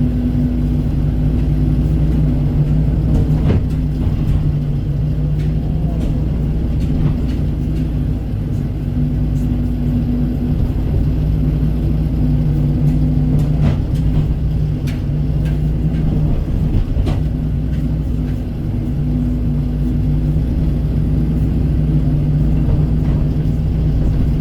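Kobelco SK135 excavator's diesel engine running steadily while it works, with a few sharp clicks and knocks scattered through.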